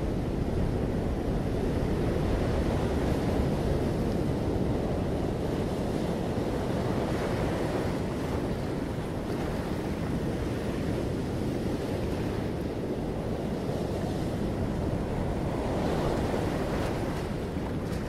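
Sea surf washing against a rocky shore, with wind rumbling on the microphone. The wash swells a little before halfway and again near the end.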